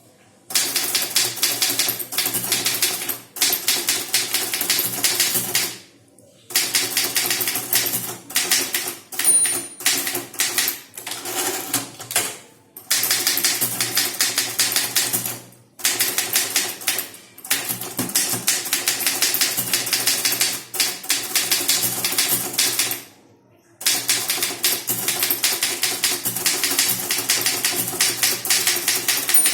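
Typewriter typed at speed, a rapid clatter of keystrokes in long runs broken by short pauses a few times.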